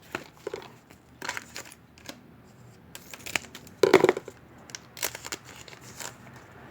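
Baseball card pack wrapper crinkling and tearing as it is opened, with cards rustling in hand; irregular rustles, loudest about four seconds in.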